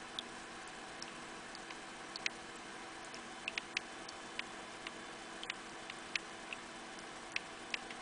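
Ultrasonic mist maker running submerged in a bucket of water: irregular sharp little ticks, two or three a second, over a faint steady hum, the sound of water droplets thrown up by the fogger spattering back onto the surface.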